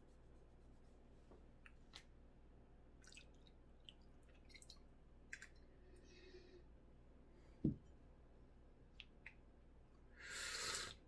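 Near silence in a small room, with faint scattered mouth clicks, a single low thump just past halfway, and a short hiss lasting about a second near the end.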